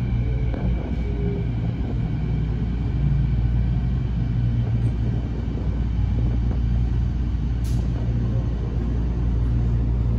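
Electric Canada Line SkyTrain moving slowly: a steady low rumble and hum heard from inside the front of the train, with a single faint click about three quarters of the way through.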